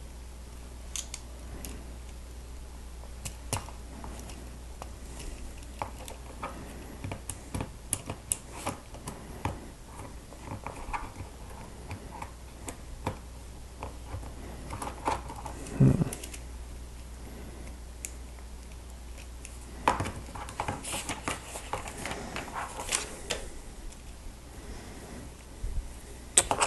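Plastic Lego Technic pieces clicking and rattling as they are handled and fitted together, in scattered irregular clicks with a louder knock about 16 seconds in, over a faint steady low hum.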